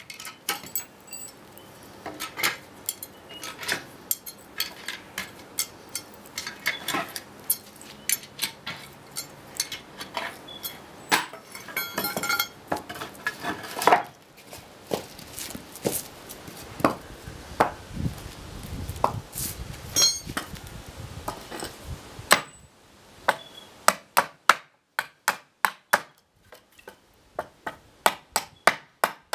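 Metal hand tools working nails out of EPAL pallet boards: irregular metallic clinks and taps of a steel bar or punch struck on the nails and wood, with knocks and scrapes as wooden blocks are moved. Near the end comes a quick, even run of claw-hammer blows on a pallet board, about two to three a second.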